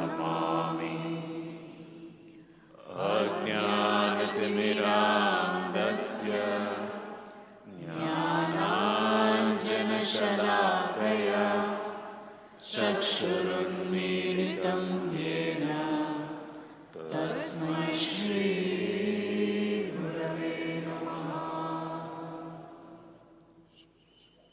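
A voice chanting a mantra in long held phrases. There are about five phrases with short pauses between them, and the last fades away near the end.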